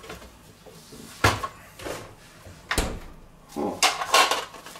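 Kitchen handling noises as a dish of pizza dough balls under cling film is fetched: two sharp knocks about a second and a half apart, then a short run of clatter and rustling near the end.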